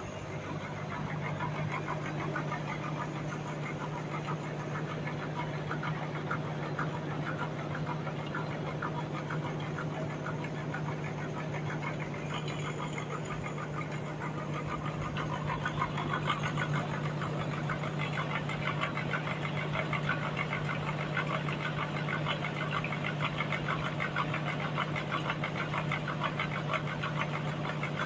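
Band sawmill running steadily with its blade cutting through a large log: a constant motor hum under a fast, gritty sawing sound that grows louder about halfway through.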